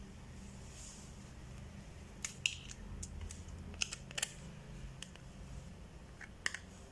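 Small, sharp clicks and taps of hand tools on a broken smartphone's casing and parts, in scattered clusters over a low, steady hum.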